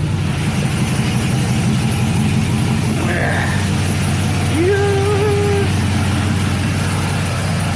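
Cammed LS V8 in a 2000 Chevy Silverado idling with a steady, choppy rumble through long-tube headers.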